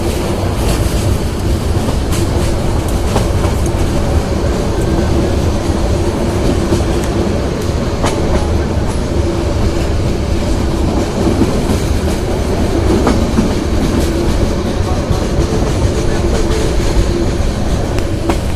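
Train running slowly on its rails: a steady rumble with a running hum, and a few sharp clicks from the wheels.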